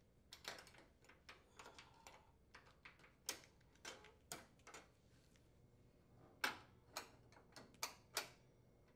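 Faint, irregular small clicks and taps of metal oven-door hinge parts being handled as the hinge locks and retaining brackets are moved into place, with a few sharper clicks in the last three seconds.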